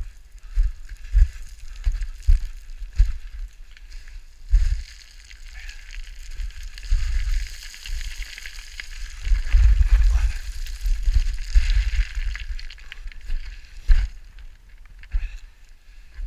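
Footsteps crunching down loose scree, with stones sliding and rattling underfoot and low thuds of each footfall jolting the camera. The sliding and scraping gets heavier and runs on longer about halfway through.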